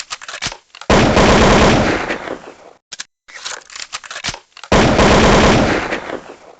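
Diwali toy gun firing two rapid bursts of pops, one about a second in and one near the five-second mark, each trailing off over a second or so. Scattered single clicks and pops come before and between the bursts.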